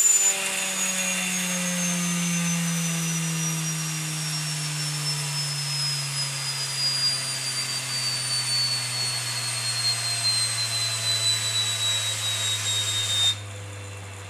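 Wolf Gang model steam turbine spinning down as its boiler runs out of steam: a whine that falls slowly and steadily in pitch over a steam hiss. Near the end the hiss cuts off suddenly and the rotor keeps coasting with no steam.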